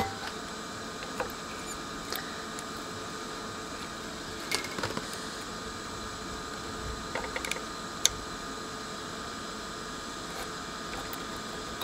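Steady faint hiss with a few thin steady whining tones, broken by scattered small clicks and taps of handling on the workbench, the sharpest about eight seconds in.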